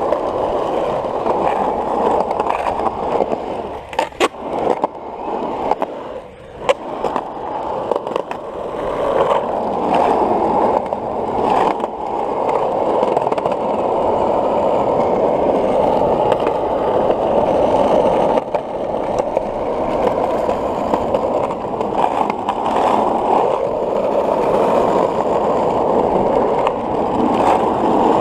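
Skateboard wheels rolling on smooth concrete, a steady rushing rumble. It eases off briefly about four to seven seconds in, with a few sharp clicks around then.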